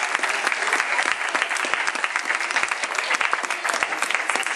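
Audience applauding, many hands clapping in a steady patter.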